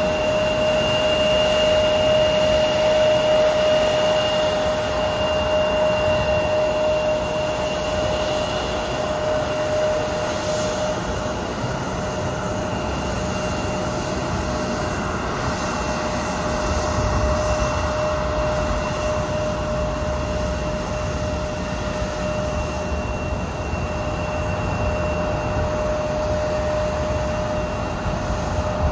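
Embraer 170 airliner's turbofan engines running at taxi power as the jet rolls across the apron: a steady whine with one strong held tone and a fainter higher one over a broad rush and low rumble.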